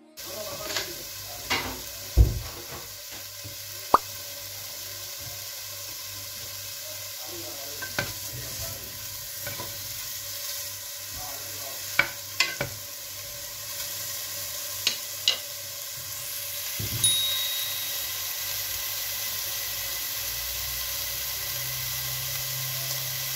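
Diced bacon sizzling in a pot, with a steady frying hiss that grows slightly louder toward the end. A wooden spoon stirs it and knocks sharply against the pot now and then.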